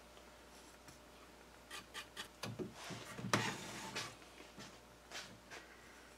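Small paintbrush stroking and dabbing paint onto a wooden whirligig wing, in soft scratchy strokes. About halfway through there are a few knocks and one sharp click as the wooden wing assembly is handled and turned on its stand.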